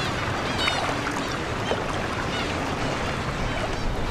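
Steady wash of sea water, with a single bird call about half a second in and a few fainter calls later.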